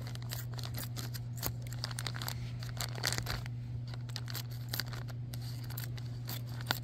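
Thin plastic toy packaging bag crinkling and being torn open, a run of irregular crackles and rips, over a steady low hum.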